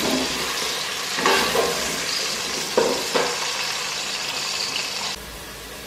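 Large potato chunks sizzling as they shallow-fry in hot oil in a stainless-steel pot, being turned until lightly golden. A wooden spoon stirs them, scraping and knocking against the pot a few times. The sizzling drops away sharply about five seconds in.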